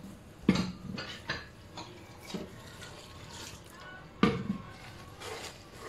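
Wire whisk stirring a thick flour and gram-flour batter in a stainless steel pot, scraping and clinking against the metal, with two sharper knocks on the pot about half a second in and just past four seconds.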